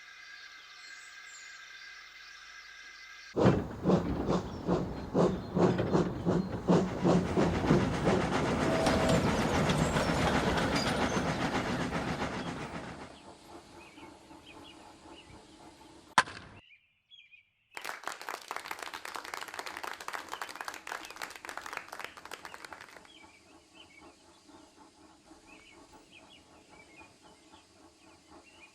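Steam locomotive sound effects: an engine chuffing rhythmically with its wheels clattering over rail joints starts suddenly, swells and fades away. After a sharp click and a short break, a second stretch of chuffing runs for about five seconds, then gives way to quiet birdsong.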